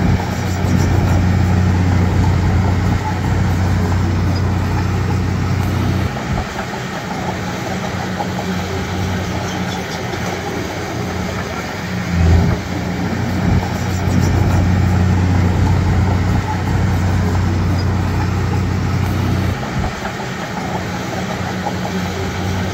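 Bulldozer's diesel engine working, a steady low drone that swells and holds for about six seconds at the start and again from about twelve seconds in, easing off between.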